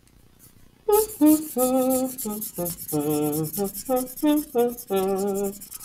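A woman humming a tune in short held notes while a felt-tip marker scratches back and forth on paper in quick strokes, colouring in.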